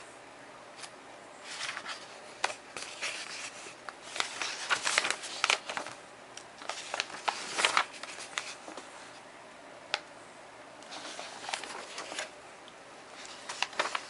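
Pages of a softcover curriculum planning guide being turned and handled: irregular paper rustles and flicks in several bunches with short pauses between.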